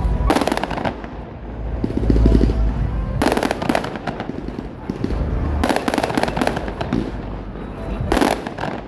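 Fireworks display: deep booms of shells bursting, each followed by a spell of dense crackling, several times over.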